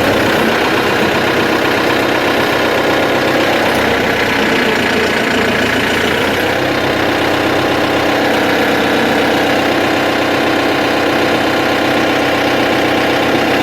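Tractor engine running steadily, its note shifting slightly about six seconds in.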